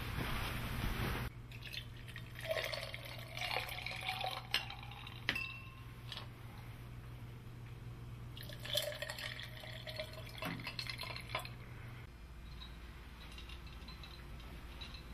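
Liquor poured from a cut-glass decanter into glasses, with glass clinking against glass, in two spells a few seconds apart. A short rush of noise comes at the very start.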